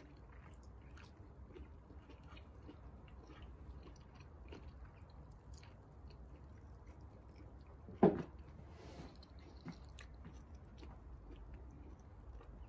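Close, quiet chewing and wet mouth clicks of someone eating rice and beef in peanut sauce by hand, with one louder short mouth sound about eight seconds in.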